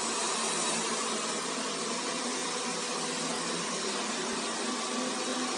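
Xiaomi Mi Robot Vacuum running: a steady, unchanging hiss and hum.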